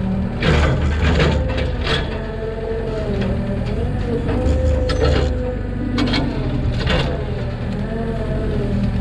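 Mini excavator's diesel engine running under load, with a hydraulic whine that wavers up and down as the boom and bucket move. Scattered clanks and scrapes of the bucket digging into soil and roots, several in the first two seconds and a few more later.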